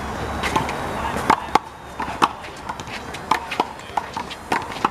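One-wall handball rally: a big blue rubber handball being struck by hand and smacking off the wall, a string of sharp smacks about every half second.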